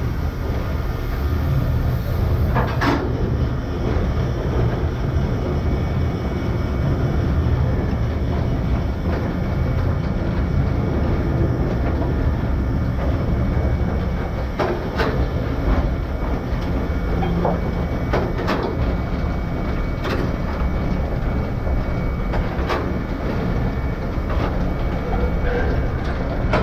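A train running along single track, heard from the cab: a steady low rumble of wheels on rail, with a few sharp, irregularly spaced clicks from the track.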